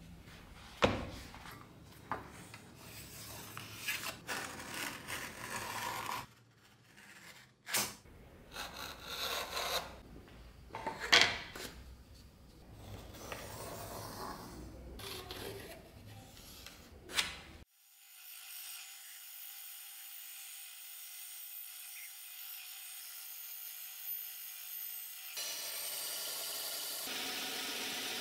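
Hands rubbing and sliding leather and a cardboard template over a workbench, with several sharp taps and knocks. About two-thirds of the way through this cuts off suddenly to the steady running sound of a bandsaw, which grows louder and fuller near the end.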